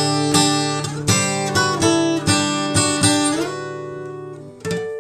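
Outro music of strummed guitar chords: a quick run of strums, then a chord left ringing and fading, and a fresh chord struck near the end.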